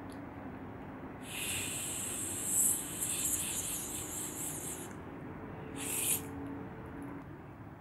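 Someone blowing on a spoonful of hot noodles to cool them: one long breathy blow of about four seconds, then a short one about six seconds in.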